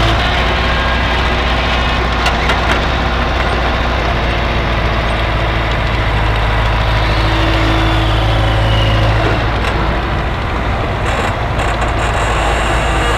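A heavy machine's engine running steadily with a deep, even hum; about ten seconds in the engine note changes and becomes rougher.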